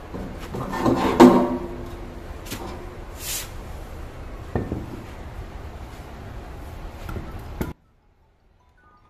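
The metal stone casing of an emery stone flour mill being twisted off its shaft, lifted away and set down: scraping and rubbing with a few knocks, the loudest a short ringing clank about a second in. The sound cuts off abruptly shortly before the end.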